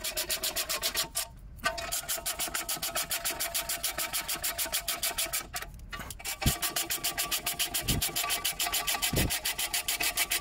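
Socket ratchet clicking rapidly as it spins nuts along the M8 windage-tray bolts, with two short pauses where the ratchet stops.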